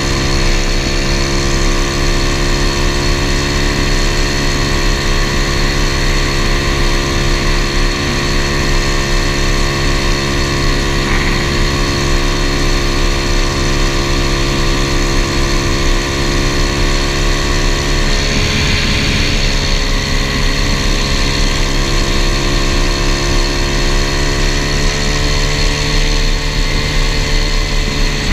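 Single-cylinder four-stroke 125cc pit-bike engine in a 1981 Honda ATC70 mini three-wheeler, running at a steady cruising speed, with wind buffeting the microphone. The engine note holds steady, dips briefly about two-thirds of the way through, then climbs a little near the end.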